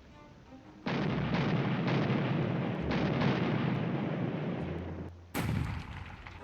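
Added blast sound effect: a sudden loud rumbling burst about a second in, with several heavier hits inside it, dying down near five seconds in, then one sharp crack.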